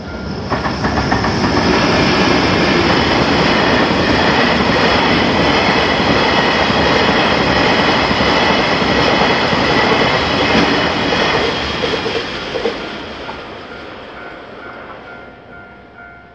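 Electric train passing through a Japanese level crossing: a dense rush of wheels on rail swells up within about two seconds, stays loud, then fades away over the last few seconds. Under it the crossing's warning bell keeps dinging about twice a second, heard plainly again as the train fades out.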